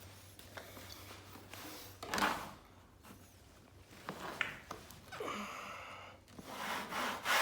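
A wallpaper spatula making a few short, quiet swishing strokes as it is rubbed across wet wallpaper to push glue out from underneath. The strokes grow louder near the end.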